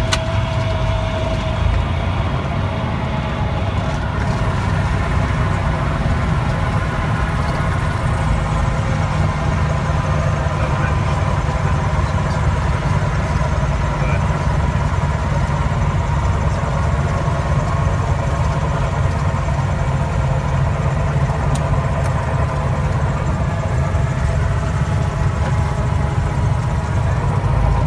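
Cessna 172's four-cylinder piston engine and propeller idling steadily, heard from inside the cockpit during the landing rollout.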